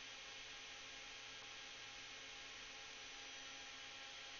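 Faint, steady hiss with an electrical mains hum underneath: recording background noise, with no other sound.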